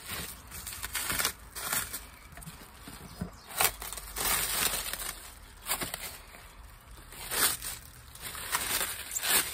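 Cellophane wrap crinkling and crackling as it is handled and pulled off a packaged part, in irregular crinkles.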